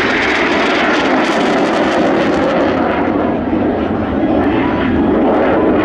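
Canadair NF-5 fighter jet flying a display pass, its twin turbojets giving a loud, steady rush of jet noise that slides lower in pitch over the first few seconds.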